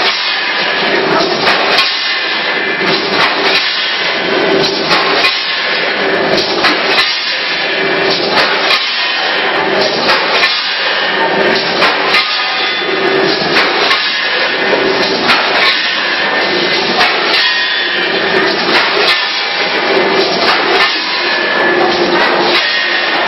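Automatic rotary pouch-packing machine running through its cycle: continuous mechanical clatter with sharp clicks, and a short hum that recurs about every second and a quarter as each station indexes.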